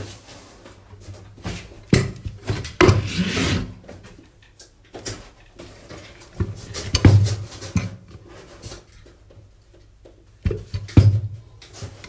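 A cast-metal Mitsubishi engine water pump (ME995357) being handled and turned over on a paper-covered table: irregular knocks and clunks as it is set down and shifted, with rubbing and rustling in between.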